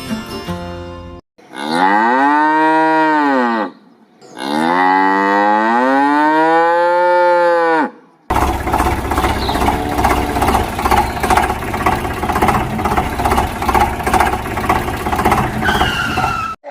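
Cow mooing twice, each moo long and rising then falling in pitch. These are followed by a long stretch of steady, noisy rumbling with fast even pulses.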